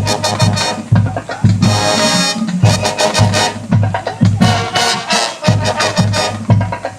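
High school marching band playing loudly: the brass section punches short chords over regular bass drum hits. One chord is held for nearly a second, about one and a half seconds in.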